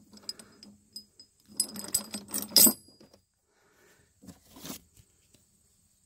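Heavy studded steel tractor tire chains (Trygg SMT 8–11 mm) clinking and rattling as links are lifted and let fall back onto the pile, with the loudest clatter about two seconds in and a shorter rattle around four and a half seconds.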